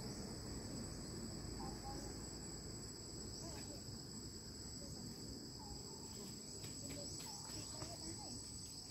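Steady insect chorus in tropical forest: a continuous high-pitched shrill held at two pitches, with faint short chirps scattered underneath.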